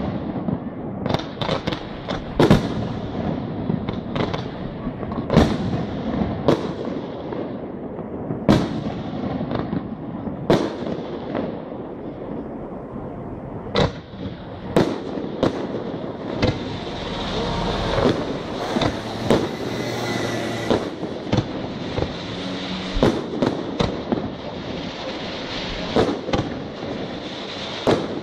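Aerial fireworks display: shells bursting in sharp bangs every second or so, each trailing off in an echo, over a continuous rumble and crackle of launches and bursts. About halfway through, the bangs thin out under a denser, steadier crackle, then pick up again near the end.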